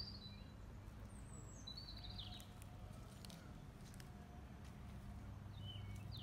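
Small birds chirping faintly in short high calls, a few at the start, again about two seconds in and near the end, over a low steady background hum.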